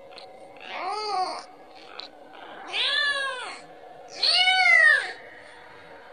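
Kitten meowing three times, about a second and a half apart, each meow rising and then falling in pitch: a kitten calling for its mother, asking for milk.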